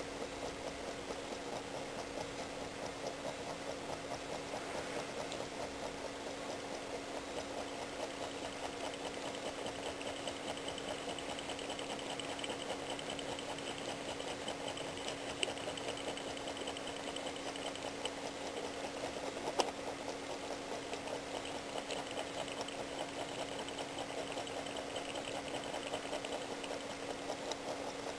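Small Stirling engine with a CD flywheel running steadily on a mug, its linkage making a fast, even mechanical clatter, with a couple of sharper clicks partway through.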